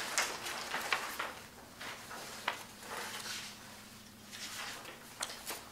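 Scattered small rustles and knocks of handling at a table, over a steady low hum; one sharper knock about halfway through.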